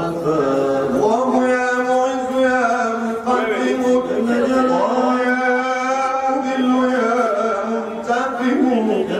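A solo male voice chanting an Arabic devotional poem in long, drawn-out notes, with slow gliding turns in the melody.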